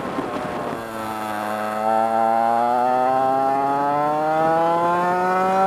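Historic 100cc two-stroke kart engine, heard from on board, rough and off the throttle for the first second, then accelerating out of a bend with its pitch rising steadily as the revs climb along the straight.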